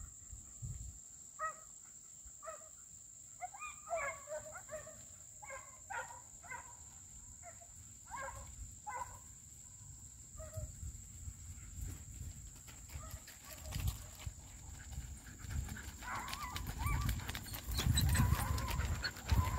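Deer hounds baying far off on a running chase: a string of short, irregular barks over the first ten seconds or so, then fading. A low rumble builds near the end.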